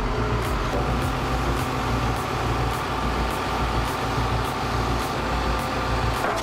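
Heavy engine of a large industrial wood chipper running steadily with a low, even drone.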